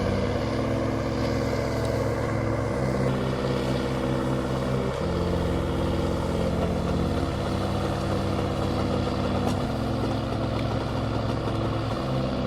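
Log skidder's diesel engine running steadily under load, its pitch shifting to a new level every few seconds.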